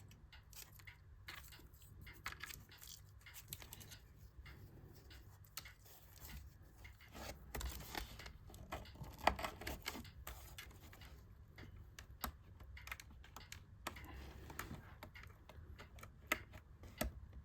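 Faint scattered clicks and handling noise as cables are fitted and clipped into their connectors inside an iMac, with a sharper click about nine seconds in.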